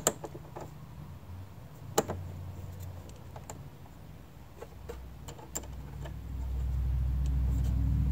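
Small metallic clicks and clinks as copper ring-terminal lugs on heavy battery cables are handled and fitted onto a terminal stud, a sharper click about two seconds in, over a low steady hum that grows louder near the end.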